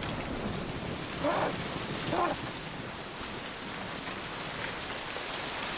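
Rain pouring steadily in an even hiss, with two brief voice sounds, a moan or a word, about one and two seconds in.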